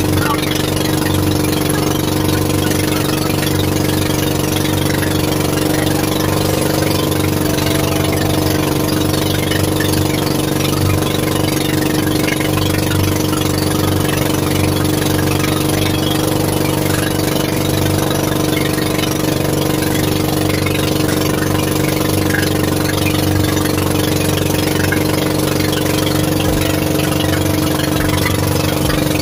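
Fishing boat's engine running steadily at an even speed.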